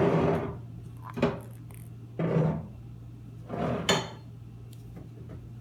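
Ping pong ball clattering and rolling on a hard surface as a cat bats it about: four short rattling bursts, two with sharp clicks, over a steady low hum.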